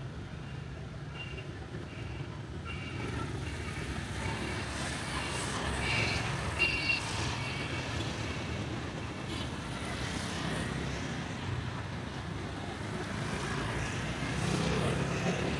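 City street traffic: vehicle engines running steadily, with a short high beep repeating evenly for the first several seconds.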